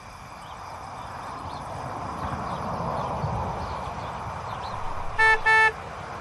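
Car driving along, its road noise swelling and easing off, then two short honks of a car horn near the end.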